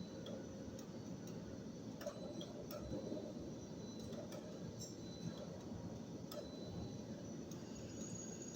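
Steady low running noise of machinery with light, irregular ticks, roughly one a second.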